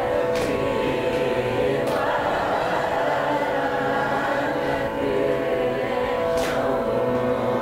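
Group of men singing a Carnatic song together in unison, with a few hand claps keeping the tala.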